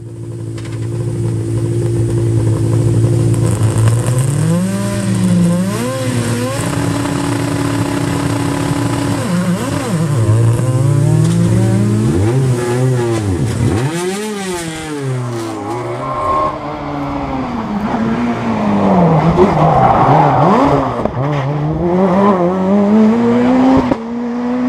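Peugeot 207 S2000 rally car's 2.0-litre naturally aspirated four-cylinder engine idling, then blipped in quick revs at the start line. About two-thirds of the way in it launches and accelerates hard, its pitch rising and dropping sharply at each upshift.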